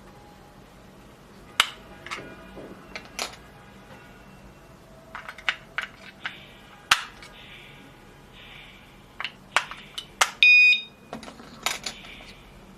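Sharp plastic clicks and snaps as batteries are fitted into a wireless door sensor alarm, then a single loud electronic beep, about half a second long, about ten and a half seconds in as the alarm powers up.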